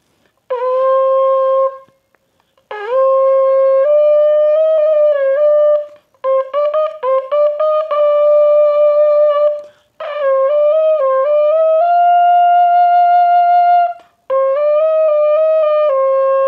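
Small bukkehorn, a goat-horn lip-buzzed trumpet with finger holes, played as five short phrases of notes stepping up and down, with some quick note changes in the middle. The last note is held steady.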